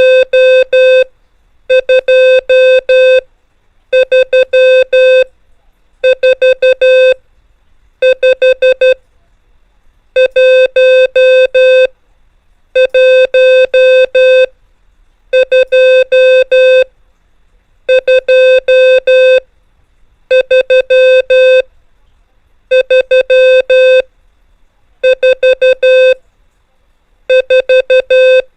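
Morse code practice tones: a steady pitch of about 500 Hz keyed in groups of five dots and dashes, each group one digit from 1 to 5, a new digit about every two seconds.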